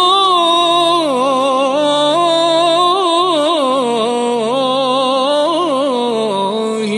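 A solo voice singing an Arabic nasheed in praise of the Prophet, holding one long ornamented melisma whose pitch winds up and down and slowly sinks, over a low steady drone.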